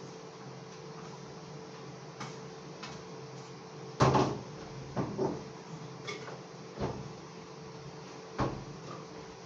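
Several separate knocks and clatters of kitchen things being handled and set down, the loudest about four seconds in, over a faint steady hum.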